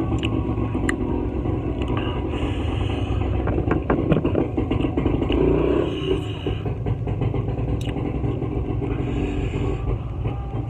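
Steady low rumble of motor traffic, with scattered soft clicks and smacks of chewing and handling food.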